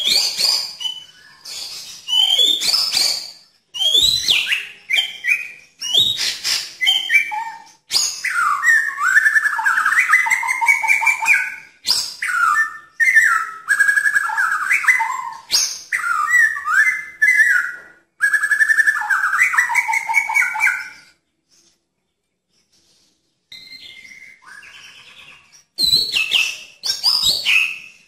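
A white-rumped shama singing: loud, varied whistled phrases mixed with sharp notes, a long run of rapid warbling through the middle, then a pause of a couple of seconds before the song starts again near the end.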